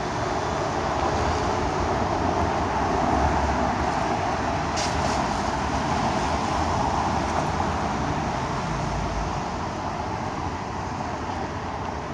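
Tyre and road noise of passing traffic, among it a Tesla Model X accelerating away, swelling about three seconds in and then slowly fading.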